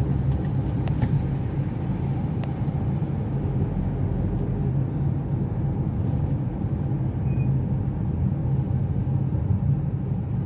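Car driving in city traffic, heard from inside the cabin: a steady low rumble of engine and tyres on rough asphalt, with a few faint clicks in the first few seconds.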